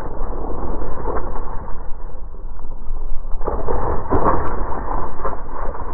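Wind on the microphone and tyres rolling over gravel and leaves during a mountain bike descent, played back in slow motion, so it comes out as a deep, muffled rumble. It grows louder and rougher a little past halfway.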